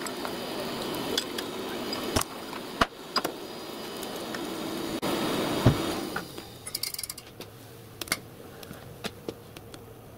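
Scattered metallic clinks and knocks from handling a coal-fired miniature live steam locomotive being raised to steam, over a steady hiss that drops away about six seconds in.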